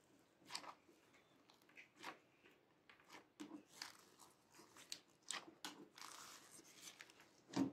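Fingers pressing and folding sticky clear slime with foam beads in a glass dish: faint, irregular wet clicks and crackles as the slime sticks and pulls away, with a louder squelching pop near the end.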